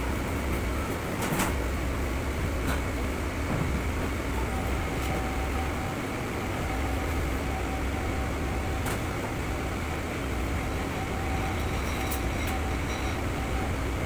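Steady low rumble of a commercial kitchen's exhaust ventilation and cooking equipment, with a few sharp clinks and knocks of cookware being handled.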